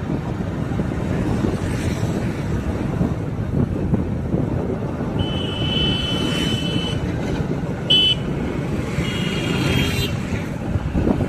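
Road traffic with a steady rumble of engines and wind on the microphone. Vehicle horns sound three times: a long honk about five seconds in, a short beep, then another honk near the end.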